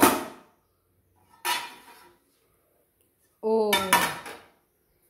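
Kitchen pots and dishes clattering: a sharp clank at the start and a second, scraping clatter about a second and a half in. A short spoken word comes about three and a half seconds in.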